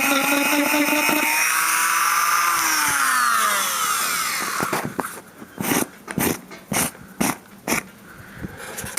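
Dremel rotary tool with a sanding attachment running on a dried sheep hide. Its steady whine rises slightly in pitch, then winds down and stops about four seconds in as the tool is switched off. Several sharp knocks and clicks of handling follow.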